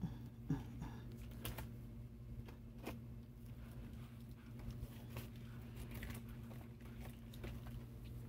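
Handling noise from a phone held close against hair: scattered light clicks and soft rustles over a low steady hum.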